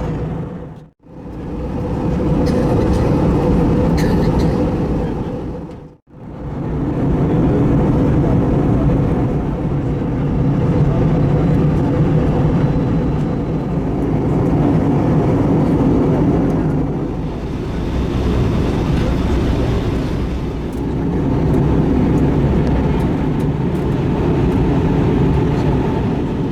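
Steady roar of an Airbus A321 in flight, engine and airflow noise with a low hum. It drops out sharply twice, about a second in and again about six seconds in, where the footage is cut.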